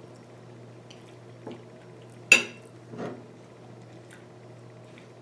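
Tableware being handled while eating: a sharp clink of a utensil against a dish about two seconds in, with a couple of softer knocks around it, over a steady low hum.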